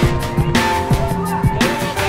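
Background music with a steady drum beat and held instrument tones.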